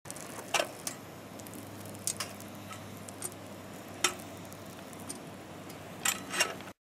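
Butter melting and sizzling in a stainless steel saucepan over a camp stove's low flame: a steady hiss with a sharp pop or spit every second or so.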